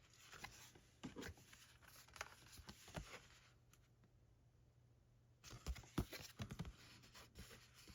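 Faint rustling and light taps of glossy card art cards being handled and turned over, in two spells with a short quiet gap between.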